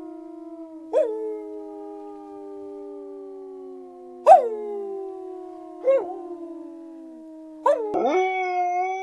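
Pit bull howling: long, drawn-out howls that overlap, each one starting abruptly and then sliding slowly down in pitch. A new, higher howl starts near the end.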